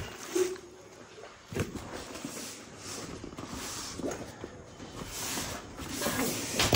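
Handling noise from a backpack and its packaging: uneven rustling of fabric and plastic, with a few sharp clicks and knocks scattered through it.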